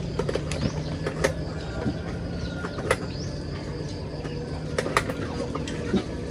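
Plastic bags of food being handled: a few sharp clicks and crinkles over a steady low hum, with faint bird chirps.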